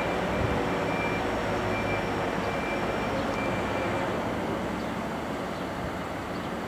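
Steady rumble of passing vehicle noise, slowly fading, with a faint high whine coming and going in the first few seconds.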